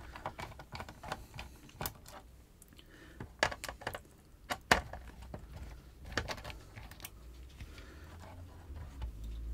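A small screwdriver and tiny screws clicking and ticking as a circuit board is unscrewed from its case and parts are handled: irregular light clicks, some a second or more apart, a few closer together.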